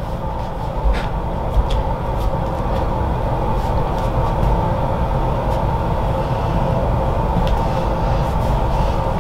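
Steady low rumble with a droning hum laid over it, and a few light clicks about a second in and near the end.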